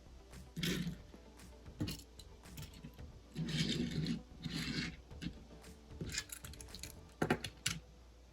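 Handling noises: rubbing and scraping in several short bursts, with a few sharp clicks about seven seconds in.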